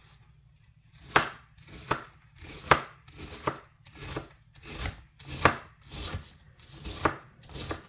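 Santoku knife dicing an onion on a cutting board: a steady run of knife chops, a little more than one a second, each a short slicing hiss ending in a click on the board, starting about a second in.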